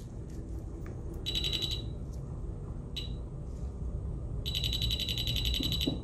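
Endo Radar Plus endomotor with built-in apex locator giving rapid, high-pitched electronic beeps: a short burst about a second in, a brief chirp near three seconds, and a longer run of beeping from about four and a half seconds on.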